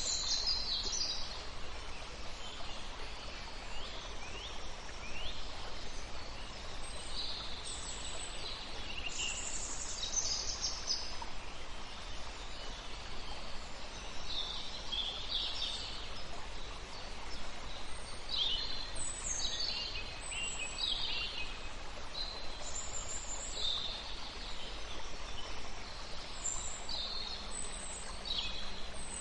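Several birds chirping and singing, short calls coming every second or so, over a steady background hiss.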